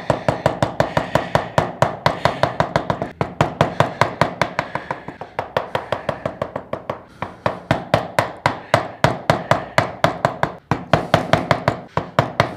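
Carving chisel driven into a wood block by rapid, light mallet taps, about five a second with a few brief pauses, chopping out wood for a shallow recess.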